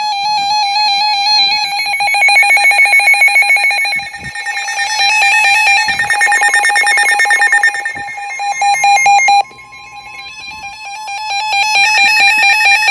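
NOAA weather radios sounding their warning alarm: loud, rapidly pulsing electronic beeping with shrill high overtones, signalling an incoming severe thunderstorm warning. It drops sharply in level about nine and a half seconds in, and a steady tone sounds beneath it for a few seconds before the beeping builds again near the end.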